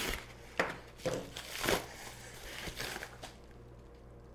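Packaging crinkling and rustling in a few short bursts as a package is handled and opened, dying away about three seconds in.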